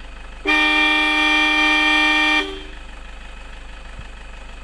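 A vehicle horn sounded in one long, steady blast of about two seconds, starting about half a second in and cutting off sharply, over a low steady engine hum.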